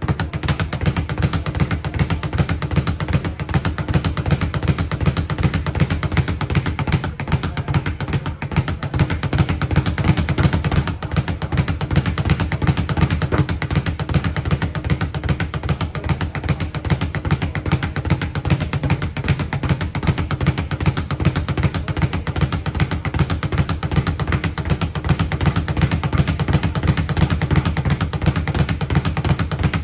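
Speed bag being punched without pause, the bag rebounding off its overhead platform in a fast, steady rattle.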